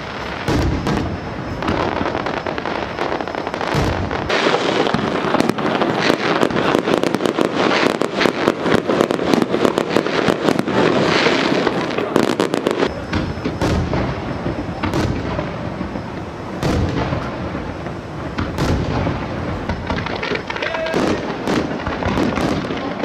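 Fireworks display: aerial shells bursting amid a dense barrage of crackling pops, thickest from about four to thirteen seconds in, then thinning to more spaced-out bangs.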